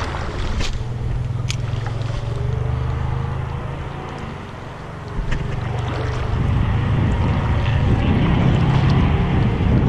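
Wind rumbling on an action camera's microphone, a steady low buffeting that swells toward the end, with a couple of faint clicks in the first two seconds.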